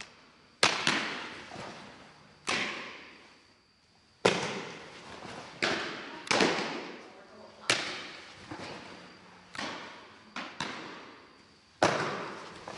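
Softballs smacking into leather gloves as they are thrown and caught, about a dozen sharp pops at irregular intervals of roughly a second. Each pop rings on in the echo of a large indoor training hall.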